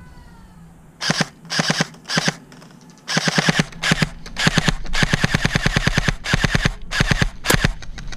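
Airsoft rifle firing on full auto: a few short bursts about a second in, then longer fast strings of shots at roughly a dozen a second.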